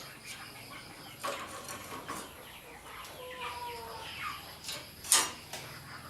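Birds calling in the background, a series of short falling chirps with one longer held call about three seconds in, and a sharp noisy clank or hiss about five seconds in.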